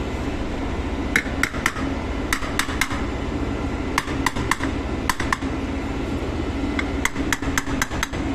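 Light metallic taps and clinks of tools on metal parts, in small clusters of two to four, over a steady low machinery hum.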